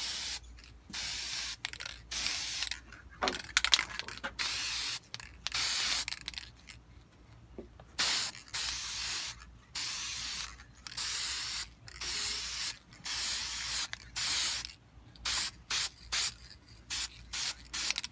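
Aerosol spray paint can hissing in repeated short bursts as a light misting first coat goes onto a car grille. The bursts run about half a second to a second each, and turn into shorter, quicker spurts near the end.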